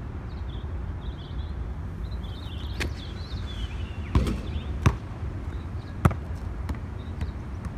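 A basketball hitting the hard outdoor court and hoop: about five sharp knocks at uneven intervals, over a steady low outdoor rumble.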